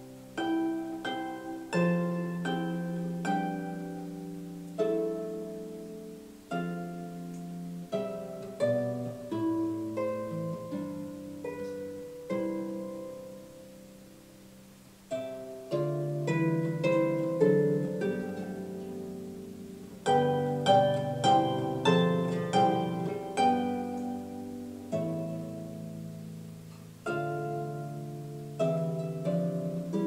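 Harp music: plucked notes and chords ringing and fading, a gentle slow melody that thins out for a few seconds about halfway through, then picks up again more fully.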